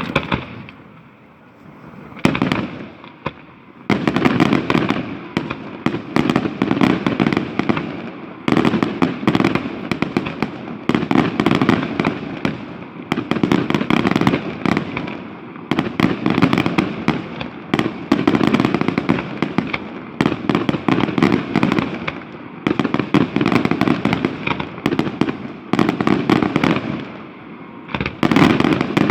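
Fireworks display: dense, rapid bursts of shells and crackling firecrackers going off almost without pause, after a short lull with a few single bangs at the start.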